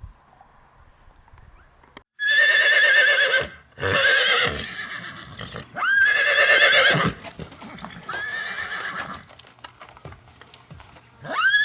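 An animal calling loudly, five times: each call about a second long with a quavering, wavering pitch, the fourth call quieter and the last starting near the end.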